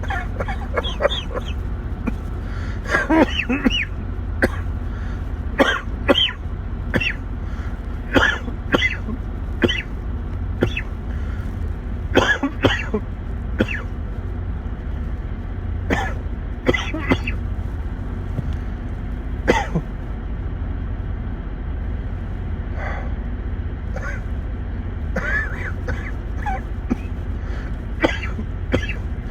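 A man coughing and clearing his throat over and over in short, sharp coughs at irregular intervals, with a lull of a few seconds after the middle. A steady low hum runs underneath.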